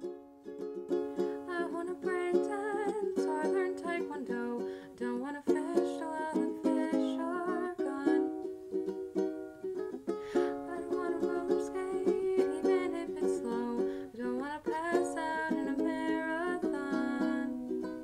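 Instrumental break in an acoustic folk song: plucked string chords ring steadily while a wavering melody line slides and bends above them.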